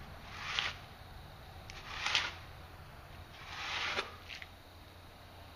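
Aerosol spray paint can sprayed in three short bursts of hiss, each about half a second long, with a brief extra puff after the third.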